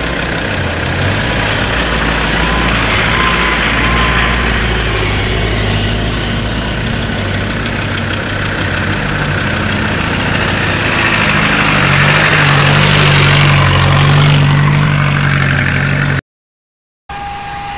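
Land Rover Defender off-road vehicles driving past on a muddy dirt track, their engines running at low revs. The engine note grows louder and a little higher from about eleven seconds in as the next one passes close. The sound cuts out for under a second near the end.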